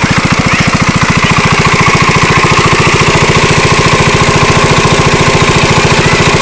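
A small tiller engine running steadily with a fast, even putter, and a faint steady whine above it.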